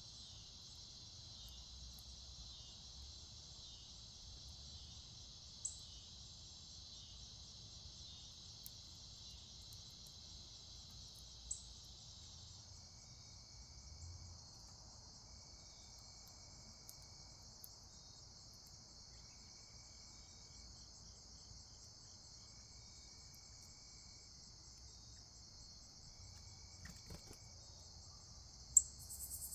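Steady high-pitched insect chorus, like crickets. About twelve seconds in, its lower part drops out, leaving a higher chorus and a fainter buzz that repeats every couple of seconds. A few sharp clicks, the loudest near the end.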